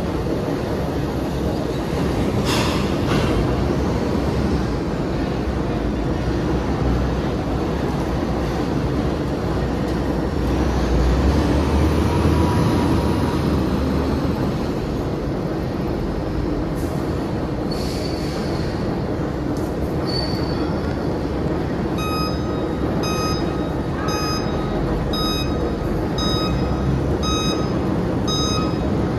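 Steady heavy rumble of a gyratory crusher and dump trucks at an iron ore crushing plant, with a brief sharp metallic screech a couple of seconds in. In the last seven seconds a truck's reversing alarm beeps about once a second.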